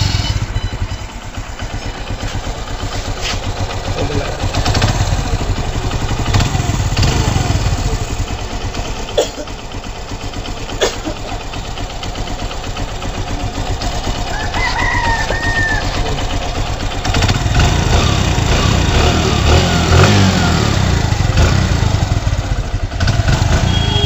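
TVS Metro Plus motorcycle's single-cylinder four-stroke engine running just after starting, its timing chain auto-tensioner freshly adjusted to take up a stretched, noisy timing chain. The engine is revved up twice, a few seconds in and again past the middle.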